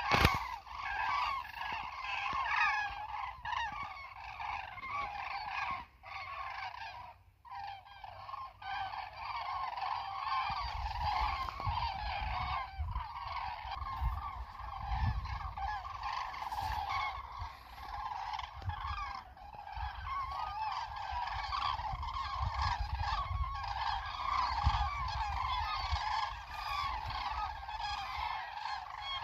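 A large flock of geese honking in flight, many overlapping calls without a break, with a brief lull a few seconds in. A low rumble runs under the calls in the second half.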